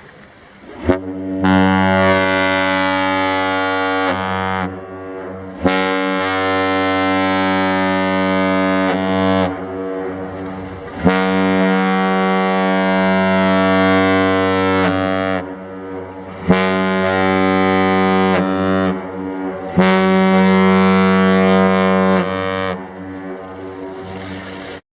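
Deep multi-tone horn, the San Francisco 49ers' touchdown horn sound, sounding about five long blasts of a few seconds each with short breaks. Each blast starts with a click, and its pitch sags as it cuts off.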